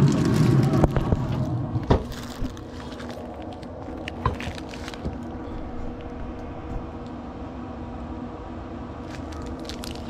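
A steady low machine hum with a few sharp knocks and clicks in the first few seconds and more light clicking near the end.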